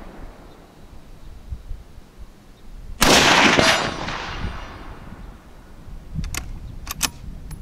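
Savage Axis XP bolt-action rifle in .308 Winchester fired once: a single sharp, loud shot about three seconds in, with an echo trailing away over the next second or so. A few quieter sharp clicks follow near the end.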